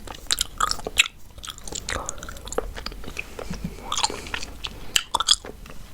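Chewing gum close to the microphone: irregular wet smacks and clicks of the mouth working the gum.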